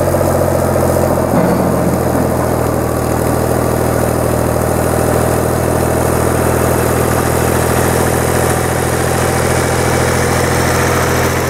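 Long 510 tractor's diesel engine running at a steady speed as it drags a box blade along a gravel driveway.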